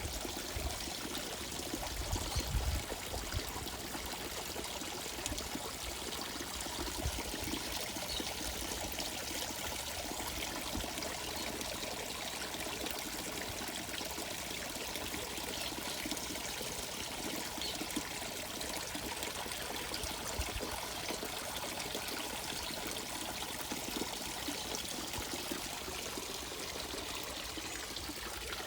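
Water pouring and trickling steadily into a carp pond, with a few low bumps about two seconds in.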